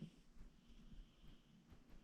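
Near silence in the pause between a sleeping cat's snores, with only faint breathing.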